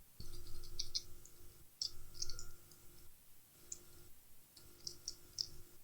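Scattered light clicks and taps of small parts and tools being handled at an electronics repair bench, as a new charging port is picked up and positioned. A faint low hum comes and goes underneath.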